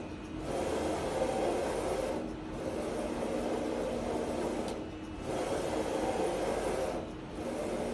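Flatbed UV printer printing on ceramic tile: the print carriage runs along its gantry with a steady whirring, rubbing hiss. The sound dips briefly about every two and a half seconds as the carriage reverses at the end of each pass.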